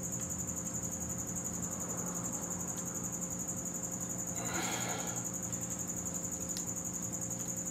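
A piston and ring compressor worked by gloved hands at the top of a cylinder bore of a Ford 302 V8 block: a brief rustling scrape about four and a half seconds in. Under it runs a steady, high-pitched, rapidly pulsing trill over a low hum.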